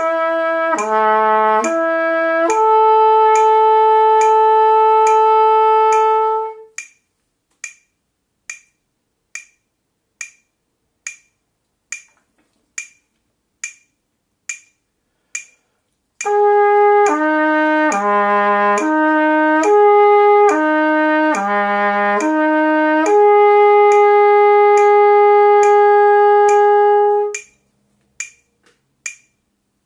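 Trumpet playing a lip-slur flexibility exercise, slurring between three harmonics on one valve combination in quarter notes at about 70 beats a minute. Each phrase ends on a long held note. A metronome clicks alone for about ten seconds between the two phrases, and the second phrase sits a step lower in pitch.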